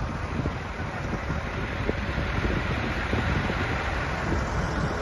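Diesel engine of heavy machinery running steadily under a wash of wind noise on the microphone, with a few faint clicks.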